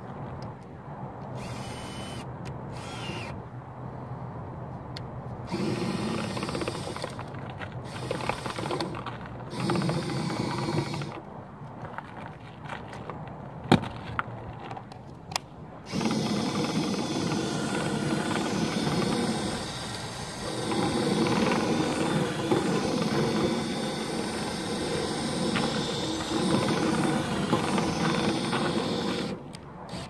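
Cordless drill spinning a flexible dryer-vent cleaning rod inside a clogged rooftop dryer vent duct. It runs in a couple of short bursts, then steadily for about thirteen seconds, and stops just before the end. A single sharp click sounds partway through.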